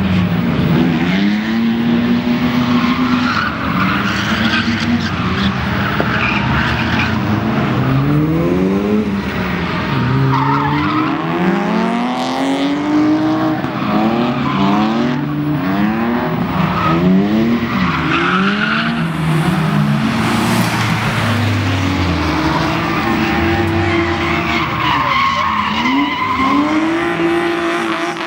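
Drift cars sliding sideways through a corner, their engines revving hard up and down again and again while the rear tyres squeal and skid, smoking.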